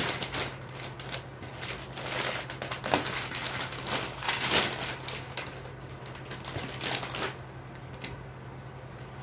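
Brown packing paper and plastic wrap crinkling and rustling as they are handled and pulled off a chrome grille, busiest in the middle with a louder rustle again about two-thirds of the way through.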